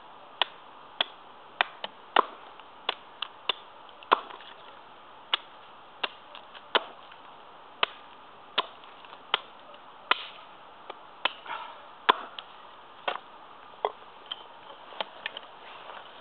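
Small Prandi Yankee axe with a 600-gram head chopping wood on a chopping block: a long series of sharp chops, about one or two a second.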